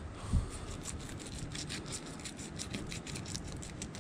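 Fillet knife slicing along the backbone of a golden tilefish: a rapid run of small scraping ticks as the blade works through the flesh, with one soft low thump about half a second in.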